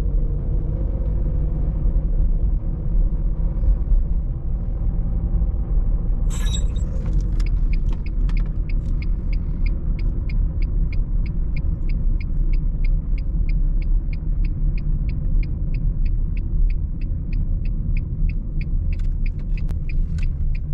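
A 2005 Renault Mégane II's 1.5 dCi diesel engine and road noise give a steady low rumble inside the cabin. About six seconds in, a switch clicks and the turn-signal indicator starts ticking evenly, roughly three ticks a second.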